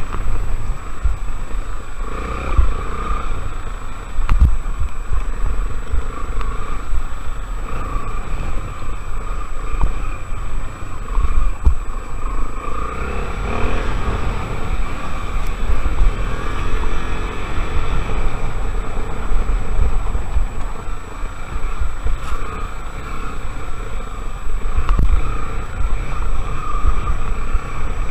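Honda Tornado XR 250's single-cylinder engine running under way, its pitch rising and falling with the throttle, with wind rumbling on the microphone.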